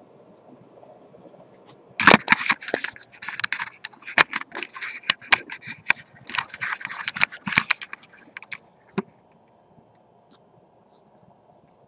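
Handling noise while a display case and ring box are opened: a dense run of clicks, knocks and rattles lasting about six seconds, then a single sharp click about nine seconds in.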